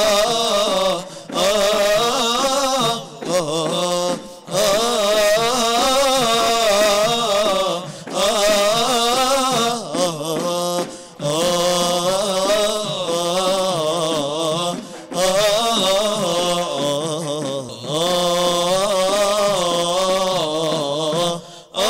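Young male vocal group singing an Arabic devotional nasheed together into microphones, an ornamented melody sung in phrases with brief breaks between them.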